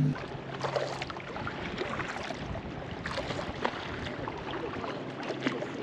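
Lake water lapping and splashing around a kayak, with many small irregular drips and splashes.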